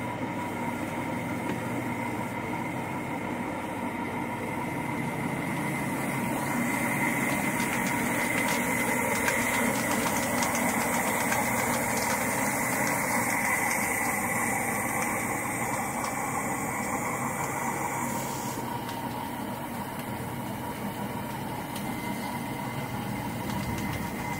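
Electric drum-type poultry plucker running steadily with quail tumbling in it and water from a hose running into the drum: a motor hum with a steady whine, somewhat louder in the middle.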